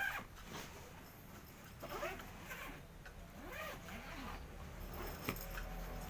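Several short animal calls, each rising and falling in pitch, spread across a few seconds, with a sharp click about five seconds in.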